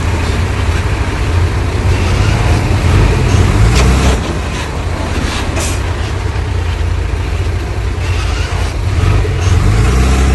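Heavy diesel engine of earthmoving machinery running with a deep, steady rumble. There are a couple of sharp knocks around the middle, and the engine grows louder near the end.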